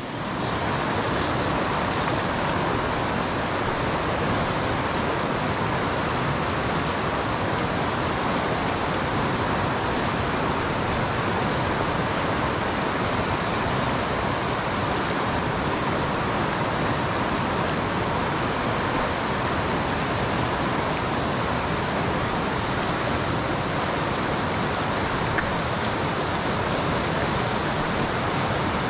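Nantahala River rushing steadily over rocks and riffles, running high after rain.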